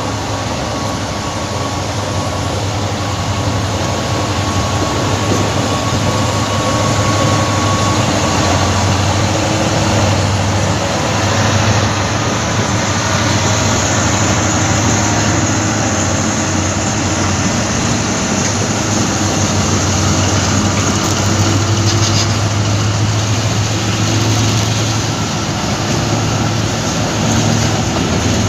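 A train running, a loud, steady mechanical noise with a low hum underneath that holds without a break.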